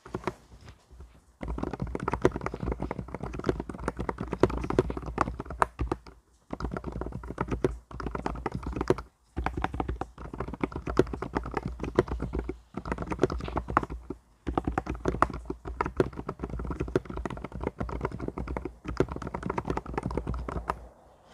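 Typing on an Mstone mechanical keyboard: rapid runs of key clacks in bursts of a few seconds, with brief pauses between them.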